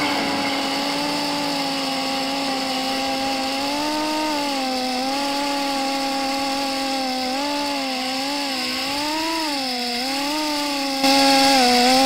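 A 3-inch FPV quadcopter's small brushless motors (1104 size) and props whining. The pitch wavers up and down with the throttle, and the whine gets louder about a second before the end.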